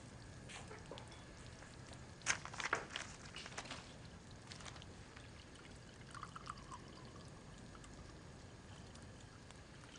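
Quiet handling sounds at a kitchen table: a few light clinks and paper rustles between about two and four seconds in, over a low steady hiss.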